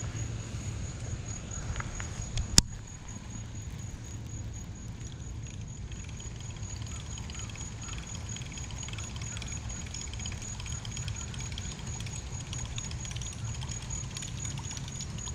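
A sharp click about two and a half seconds in, then the steady rhythmic whir of a baitcasting reel being cranked as a buzzbait is retrieved across the water's surface, with wind on the microphone.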